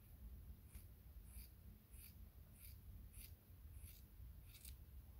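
Faint, crisp snips of small scissors cutting a dog's fur, about seven of them, roughly one every two-thirds of a second.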